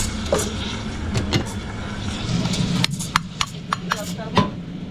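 Drink-making clatter at a coffee counter: a low steady machine hum that swells about two seconds in, with a run of sharp clinks and knocks, some briefly ringing, in the second half.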